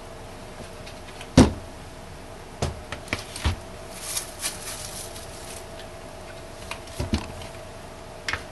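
Handling of a silicone soap mold and bubble wrap: a loud thump about a second in as the mold on its plastic cutting board is set down on the table, then a few lighter knocks. Around the middle, crackly rustling as gloved hands press bubble-wrap strips into the mold cavities.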